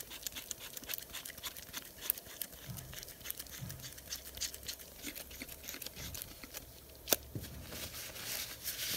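Small irregular clicks and scrapes of a Rodac air drill's metal housing being handled and screwed back together by gloved hands, with one sharper click about seven seconds in. Near the end, a paper towel rustles as it wipes the tool.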